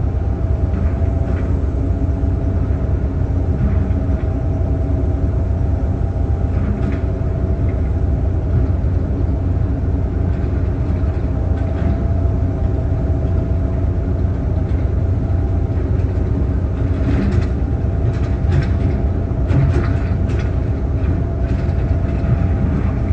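Heavy diesel engine running steadily with a deep drone. A few light knocks and clanks come through past the middle.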